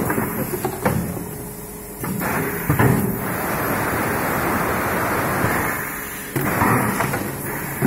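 PET bottle blow moulding machine working: metallic clunks of its pneumatic cylinders and mould closing, and a steady hiss lasting about three seconds in the middle, like compressed air blowing the bottles.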